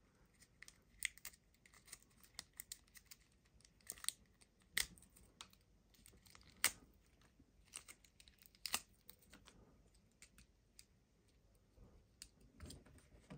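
Irregular small plastic clicks and taps from an S.H.Figuarts action figure being handled and its limbs moved, with light rustling of plastic wrap. The clicks come at uneven intervals, a few louder ones in the middle, and thin out near the end.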